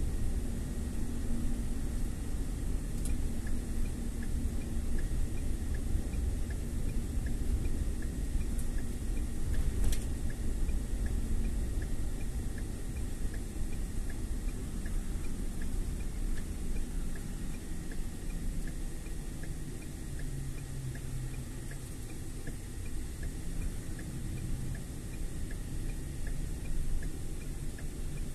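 Car cabin noise: a steady low engine and road rumble. From about six seconds in, a turn-signal indicator ticks steadily, and a single knock comes about ten seconds in.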